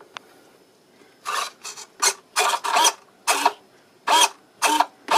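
Radio-control brake servo driven back and forth, whirring in about eight short strokes roughly two a second after a quiet first second.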